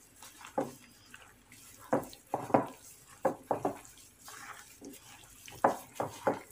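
A bare hand kneading and tossing egg-coated squid rings through flour in a glass bowl: a string of short, irregular wet squishes and pats, some coming in quick runs of two or three.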